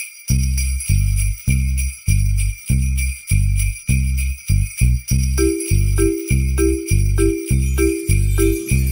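Instrumental music: sleigh bells shaken in a steady beat, joined just after the start by a deep bass line of evenly spaced notes, with a held higher note added about five seconds in.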